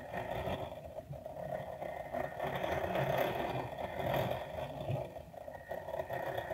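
Brass clock movement's gear train whirring freely as the mainspring unwinds, its escapement anchor removed so the escape wheel spins in fast motion with no tick. The whir rises and falls a little in level.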